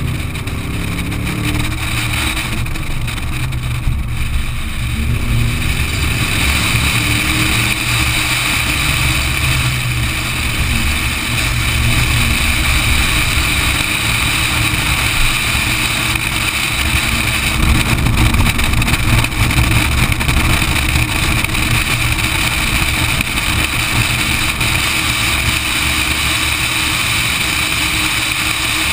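V8 Supercar's V8 engine at race pace, heard from a camera mounted outside the car over heavy wind rumble on the microphone. In the first few seconds the engine note climbs and drops a few times through the revs, then it runs steadily at speed.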